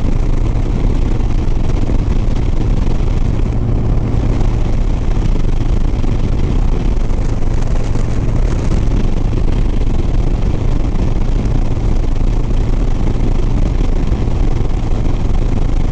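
Harley-Davidson Sport Glide's V-twin engine running steadily at highway cruising speed, with a constant rush of wind and road noise.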